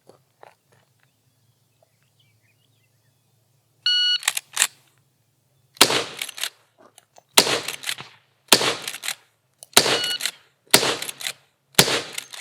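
Electronic shot-timer start beep about four seconds in. Six .357 Magnum shots follow from a Winchester Model 94 AE lever-action rifle, the lever worked between them. The first shot comes a little under two seconds after the beep and the rest about one to one and a half seconds apart, for a time of 7.94 seconds.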